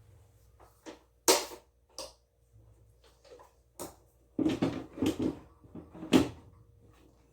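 Irregular knocks and clatter of household items being handled and set down. A loud knock comes about a second in, a quick run of knocks follows around four to five seconds in, and another loud knock comes about six seconds in.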